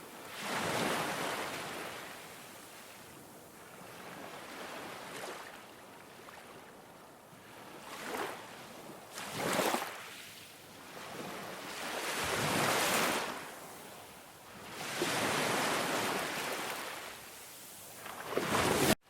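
Ocean waves breaking on a beach: surf washing in and drawing back in repeated surges every few seconds. The sound cuts off abruptly just before the end.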